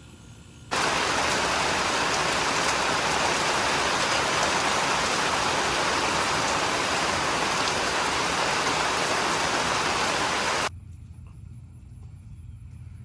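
Loud, steady downpour of heavy rain, cutting in abruptly about a second in and cutting off just as abruptly about ten seconds later.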